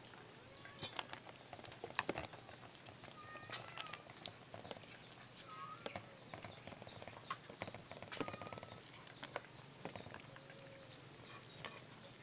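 Cats eating dry cat food mixed with rice: faint, irregular crunching, clicks and smacks of chewing, with a few short chirps in the background.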